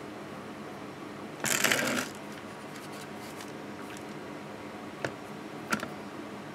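A short rustling scrape about one and a half seconds in, as of the painting board being shifted on a woven table mat, then two light clicks near the end, over a steady low hum.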